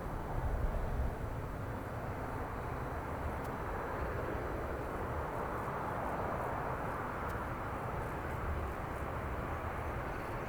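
Four Allison T56 turboprop engines of a Lockheed C-130H-30 Hercules flying the circuit at a distance: a steady engine noise with no clear pitch that swells a little about halfway through, over a low rumble.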